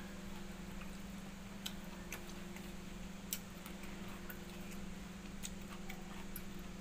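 Eating by hand: small irregular clicks and smacks from chewing and from fingers working watered rice (pakhala) in a steel bowl, over a steady low hum.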